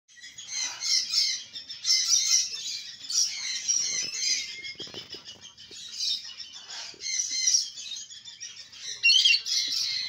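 Many birds chirping and twittering at once in a dense, high-pitched chorus, with a louder rising call about nine seconds in.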